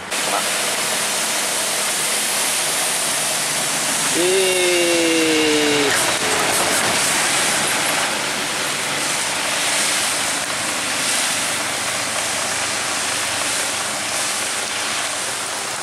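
Steady hiss of rain and traffic on a wet road. About four seconds in, a vehicle horn sounds two notes at once for just under two seconds, both sliding slowly down in pitch.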